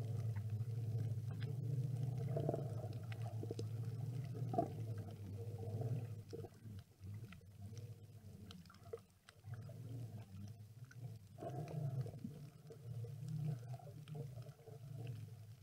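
Muffled underwater ambience picked up by a snorkeler's camera: a low rumbling hum with faint scattered clicks. It is steadier and louder at first, then drops to a quieter, uneven wash about six seconds in.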